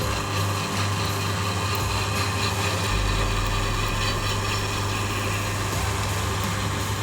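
Electric drill running steadily under load, drilling holes through a steel bracket.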